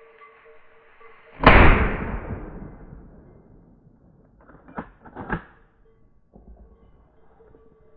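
A single hunting-rifle shot about a second and a half in, its report echoing and dying away over a second or so. Two short sharp clicks follow a few seconds later.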